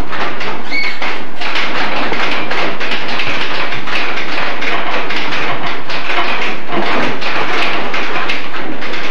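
A roomful of typewriters being typed on at once: a dense, continuous clatter of overlapping key strikes.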